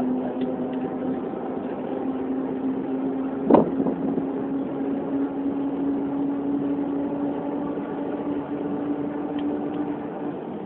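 Train running, heard from on board: a steady rumble with a steady hum, and a single sharp knock about three and a half seconds in.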